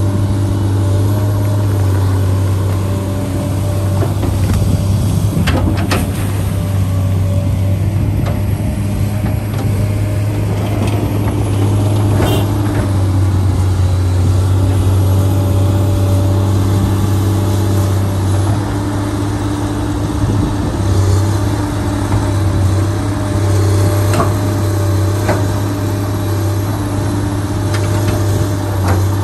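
An engine running steadily at a constant speed, with a few sharp clicks over it.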